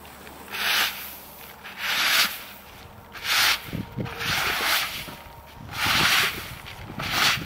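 Paddy rice being raked and pushed across a plastic tarp with long wooden-handled hand tools: six scraping swishes of grain, one every second or so.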